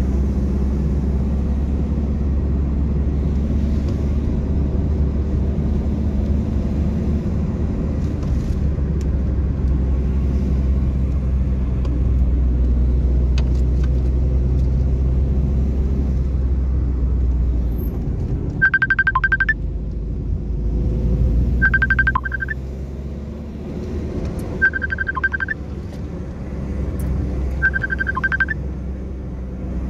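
Steady low rumble of a car on the move. After about 18 s the rumble eases and a high beep sounds four times, roughly every three seconds.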